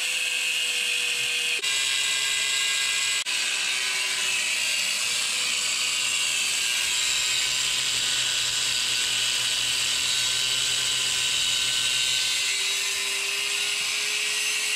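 Corded angle grinder cutting through a steel wheel stud: a continuous grinding hiss over the motor's whine. The whine drops in pitch as the disc bites into the stud and climbs back near the end as the load eases.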